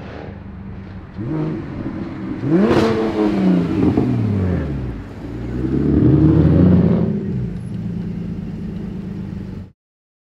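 Single-turbo BMW 335i's 3.0-litre N54 inline-six with a 3.5-inch single exhaust accelerating away: engine pitch climbs, falls back with a short sharp hiss near three seconds in, then climbs again before settling. The sound cuts off suddenly near the end.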